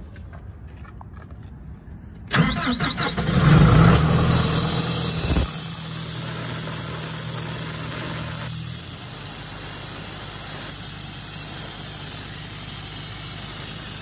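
Doosan portable air compressor's four-cylinder Cummins diesel cranking and firing about two seconds in, running loudly for about three seconds, then settling into a steady run. It starts now that its SCR inducement lockout, set off by running out of DEF, has been reset. The running engine sounds quiet, muffled by the phone's noise suppression.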